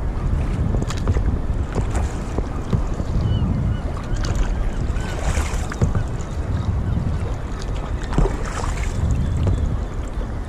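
Wind rumbling on the microphone while a kayak moves on open lake water, with water splashing every few seconds.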